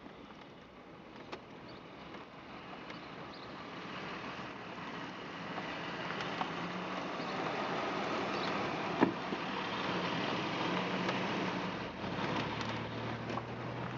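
Car engine and road noise from inside the cabin, growing louder over the first six seconds as the car picks up speed, then holding steady with a low hum. A single sharp click about nine seconds in.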